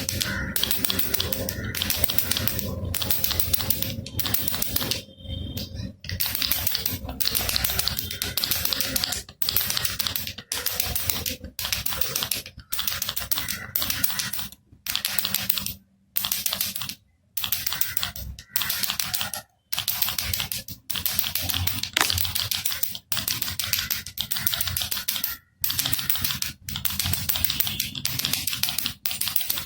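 Baby rattle (jhunjhuna) being shaken, a dense rapid clatter of its small loose beads, stopping for brief gaps about once a second between shakes.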